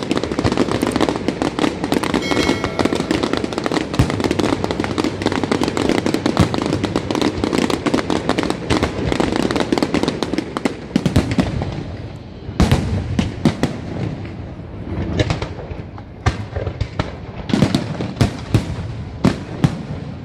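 Aerial fireworks display: for the first half a dense, continuous crackle of many shells and crackling stars bursting together, then from about twelve seconds in separate sharp bangs of shells bursting at irregular intervals.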